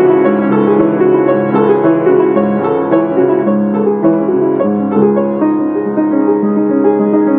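Background piano music: a continuous run of notes.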